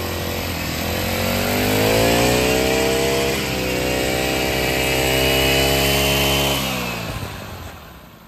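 Honda GX50 four-stroke engine of a brush cutter speeding up and running at high revs, then slowing and fading away in the last second or two.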